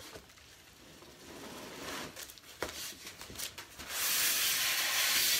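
Large cardboard box being opened by hand: soft rustling and scraping of cardboard and packing with a few sharp clicks, then, about four seconds in, a loud steady rasp of something rubbing against the cardboard that lasts over a second.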